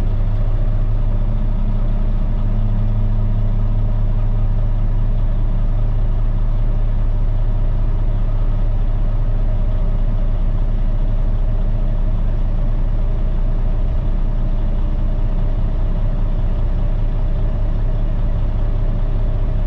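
Caterpillar C13 inline-six diesel of a Kenworth T800 dump truck running steadily while its PTO-driven hydraulic hoist tips the dump bed up. It is a low, even engine hum with no change in speed.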